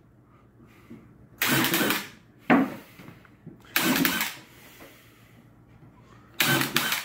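Cordless drill driving screws into wooden gate boards in four short bursts, each lasting about a second or less, with pauses between them while the next screw is set.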